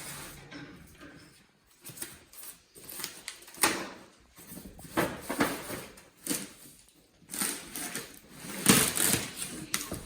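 Handling noises of a Samsung Bespoke refrigerator's glass door panel being lifted and fitted into the fridge door: irregular scrapes and knocks, with a sharp knock about three and a half seconds in and a louder one near the end.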